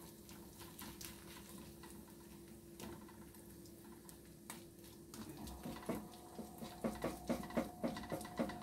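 A spatula pressing and scraping a spaghetti-and-vegetable pancake in a nonstick frying pan: a few faint scrapes, then a quicker run of light taps in the second half, over a faint steady hum.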